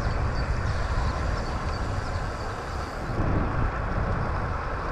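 Steady rush of wind on the microphone, with the rumble of road and tyre noise from riding along on a bicycle.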